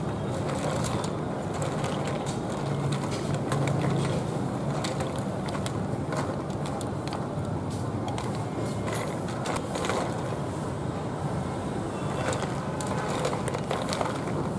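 A pot of whole land snails boiling hard, with a steady bubbling. Scattered clicks come as wooden chopsticks stir the shells against the steel pot.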